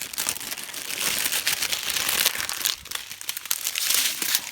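Plastic packaging crinkling and rustling as it is handled, a continuous dense crackle.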